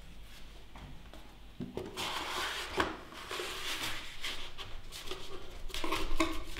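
A sheet of black card being pushed into a cardboard shoebox and pressed flat with the hands. The card rubs and scrapes against the box, with a few sharp clicks; it starts about two seconds in.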